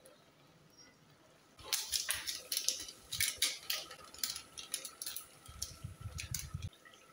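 Kitchen utensil clinking and knocking against an aluminium cooking pot, a quick irregular run of sharp clicks lasting about five seconds, starting a second and a half in.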